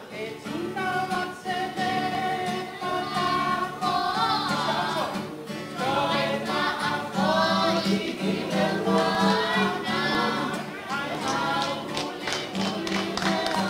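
A small group of voices singing a Samoan song together, accompanied by a steadily strummed acoustic guitar.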